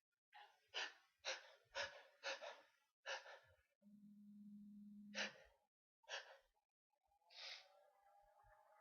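A person's short, quiet breaths just after a sneeze. First comes a quick run of about two puffs a second, then they slow to a few spaced puffs. A faint low steady hum runs for about a second and a half near the middle.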